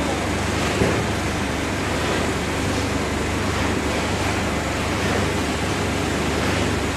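Steady whooshing machinery noise with a low hum from a bottle shrink-wrap packing machine and its heat tunnel running, with one light click about a second in.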